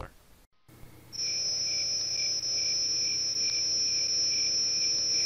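A steady, high-pitched tone with a fainter lower tone beneath it; it starts about a second in and cuts off suddenly at the end.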